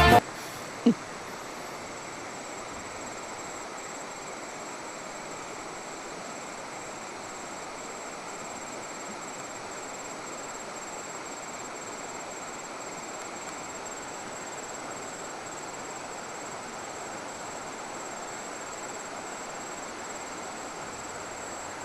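Steady, even rushing noise with a thin, steady high-pitched tone above it. A brief, loud blip about a second in.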